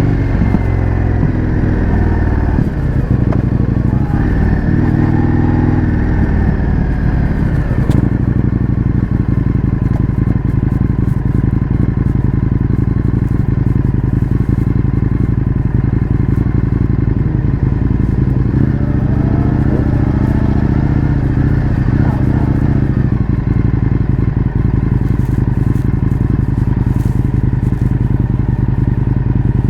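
Indian FTR 1200's V-twin engine running through an Akrapovič exhaust, heard from on the bike while riding. The engine note shifts up and down in the first few seconds, holds steady through the middle, and rises about twenty seconds in as the bike accelerates.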